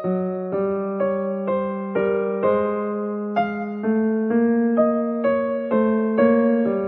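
Background music: a gentle piano-like keyboard melody, with a new note struck about twice a second, each ringing and fading.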